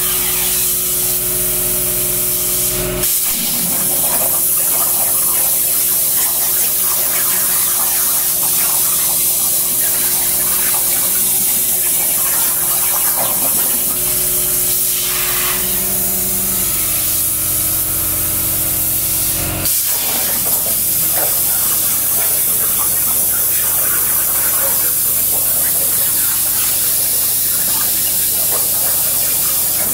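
CNC plasma cutter cutting 3/16-inch steel plate: a loud, steady hiss from the arc and its air stream, with a steady hum underneath. The hiss breaks briefly about 3 seconds in and again near 20 seconds, as the torch stops and starts between cuts.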